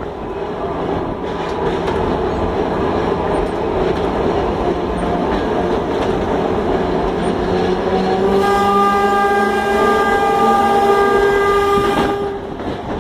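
Heliopolis tram running along its rails, heard from the driver's cab: a continuous rumble and rattle. About eight seconds in, a whining tone with several pitches joins it, rising slightly at first, and breaks off briefly near the end.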